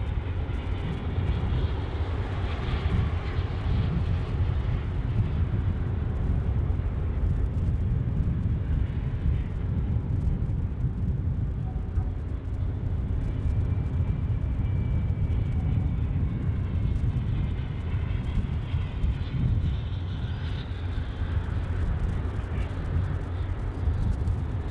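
Continuous low rumble with wind buffeting the microphone, likely the engines of a large heavy-load ship passing close by.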